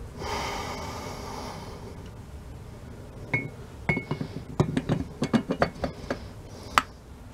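Metal clinks and knocks as the drive-end housing of a WWII Weasel starter motor is worked onto the starter frame over the armature shaft by hand. After a soft hiss in the first two seconds, a quick run of about fifteen clinks and taps starts about three seconds in. Two early clinks ring briefly, and one sharp knock near the end is the loudest.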